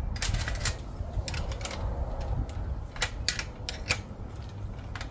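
A wrench tightening a carriage-bolt nut on a steel chain-link gate hinge bracket: irregular metallic clicks and clinks, several in quick succession.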